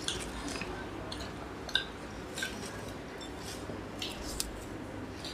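Masala dosa being eaten by hand: wet chewing and lip smacks, with short crisp crackles now and then, a few times over the stretch.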